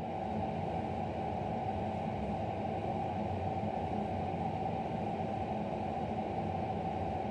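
Steady background hiss and hum with no distinct footfalls or other events.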